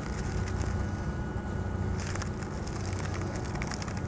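Steady low background hum with faint scattered clicks.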